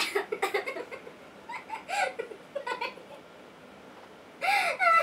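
Women giggling and laughing, with a quick run of laughter pulses at the start and a louder, high-pitched burst of laughter near the end.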